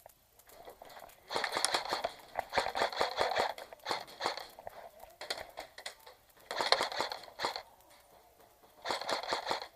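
Airsoft guns firing several rapid bursts of about a second each, a fast clatter of shots with short pauses between them.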